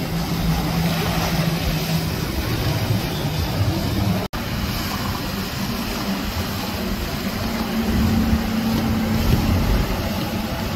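Outboard motors of center-console boats running at speed past the camera: a steady engine drone over a rush of spray and wind. The sound drops out for a moment about four seconds in, then a second boat's engine takes over, its pitch rising a little past halfway.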